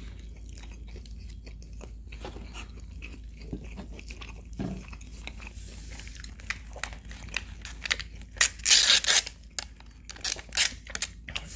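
Close-up eating sounds: crunching, biting and chewing of fried chicken and fries, with many small sharp crunches and a louder, longer noisy burst about eight and a half seconds in.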